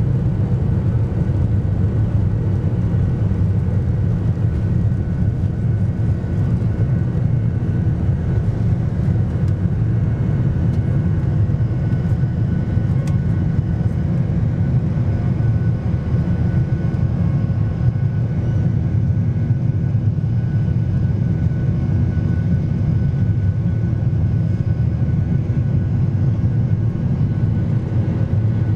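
Boeing 737-800's CFM56-7B turbofan engines at takeoff thrust, heard from inside the cabin as a loud, steady rumbling roar with faint whining tones above it, through the takeoff roll and initial climb.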